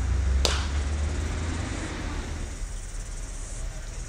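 A cricket bat striking a ball once, a single sharp crack about half a second in, over a low outdoor rumble that fades away.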